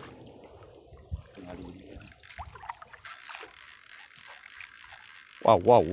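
Spinning reel's drag giving line, a fast steady high buzz of clicks that starts suddenly about halfway through as a hooked fish pulls against it.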